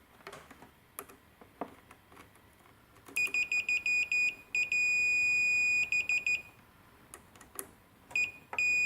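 Multimeter continuity beeper sounding as probes touch the PET keyboard cable's contact points: a few light probe taps, then a run of quick short high beeps, one beep held for over a second, and two more beeps near the end. Each beep signals continuity, showing those cable traces are intact.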